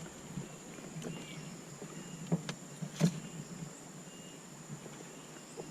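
Scattered light knocks in a small fishing boat, the loudest about three seconds in, over a steady low hum and a thin high whine.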